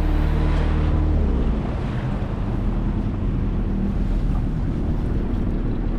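Outboard motorboat under way: the engine runs with a rush of wind on the microphone and water noise. The engine's hum drops in pitch and level about a second in.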